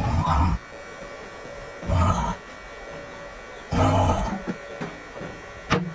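A person snoring loudly with a buzzing rattle, one snore about every two seconds.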